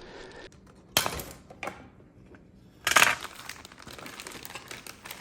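Small plastic dishwasher rack parts being handled and fitted: a few sharp clicks and crinkly rustles, the loudest about three seconds in, with quieter fumbling noise between.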